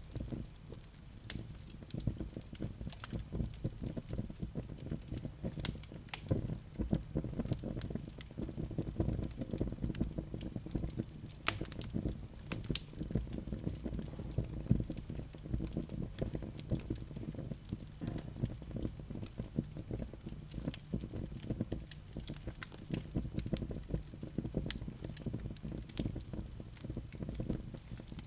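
Wood fire burning in a fireplace: a steady low rumble of flames with many small, irregular crackles and pops.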